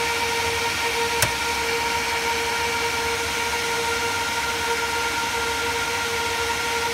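Rack server's cooling fans running steadily: an even rush of air with a steady whine on several pitches. A single sharp click about a second in.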